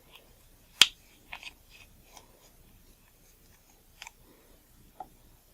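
Small parts and tools being handled during a camera lens cleaning: one sharp click a little under a second in, then a few fainter clicks and taps.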